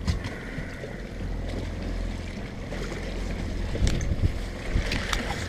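Wind buffeting the microphone over a steady low rumble on the deck of an open fishing boat, with a few short knocks near the start, about four seconds in and about five seconds in.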